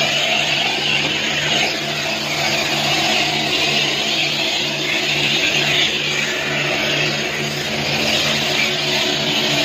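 Self-service car wash foam brush wand spraying soapy water, a steady hiss over the constant hum of the wash bay's pump motor.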